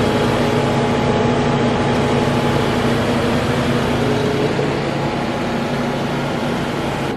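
10,000 BTU GE window air conditioner running on high fan, set to cool: a steady rush of air with a constant low hum.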